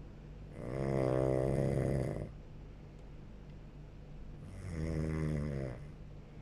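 A person snoring in sleep: two long, pitched snores about four seconds apart, with quieter breathing between them.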